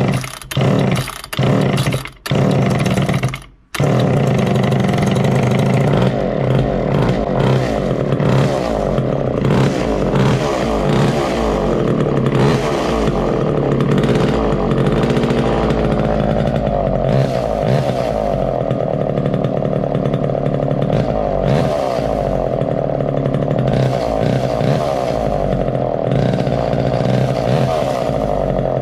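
1969 Homelite EZ Automatic chainsaw's two-stroke engine firing in short bursts for the first few seconds, then catching about four seconds in and running steadily: the saw's first start after some 20 years in storage.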